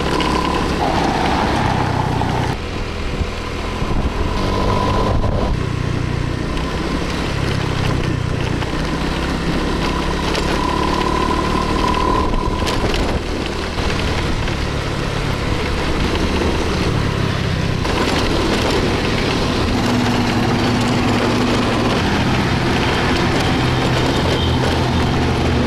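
Honda automatic scooter engine running while being ridden along a dirt road, the engine note shifting every few seconds with the throttle, under steady wind noise.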